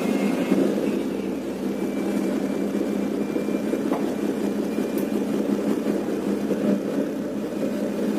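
Tugboat's diesel engine running steadily during close-quarters manoeuvring, with a low, even drone and two faint ticks about four and five seconds in.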